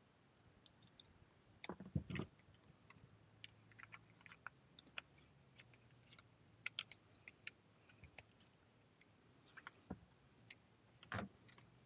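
Faint scattered clicks and taps of small parts being handled and fitted onto a Glock 43X pistol, with a few louder knocks about two seconds in and one near the end.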